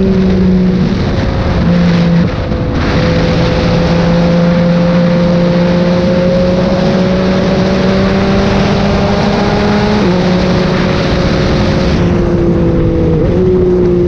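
Yamaha MT-09's inline three-cylinder engine running hard at highway speed, with wind rush over the microphone. Its pitch climbs slowly, with a brief dip in loudness about two seconds in and a step down in pitch about ten seconds in.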